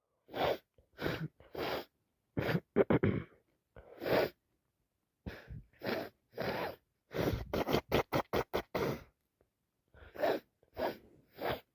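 A person sniffing over and over with an allergy-blocked, runny nose: short sniffs every second or so, with a quick run of about half a dozen rapid sniffs past the middle.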